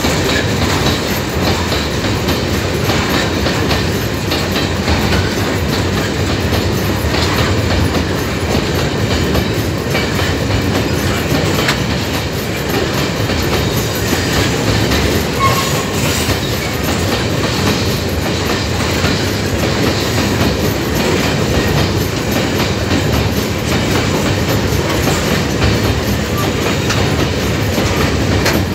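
Empty steel ore gondola wagons rolling past: a steady rumble of wheels on rail, with repeated clacks as the wheel trucks pass over the rail joints.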